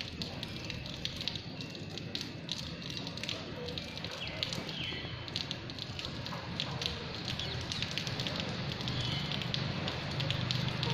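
Steady rain falling, a continuous hiss with many small ticks of drops hitting nearby surfaces.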